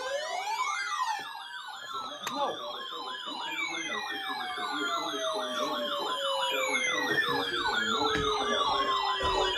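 Several sirens sounding at once. A wailing sweep near the start gives way to fast yelping up-and-down sweeps, with a faster warble above them. Long tones glide slowly downward over the top.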